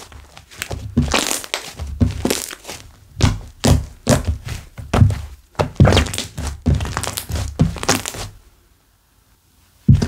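A slime being squished, pressed and folded by hand in quick repeated strokes, about two a second, each a short squelching thud with crackle. They stop for about a second and a half near the end, then resume.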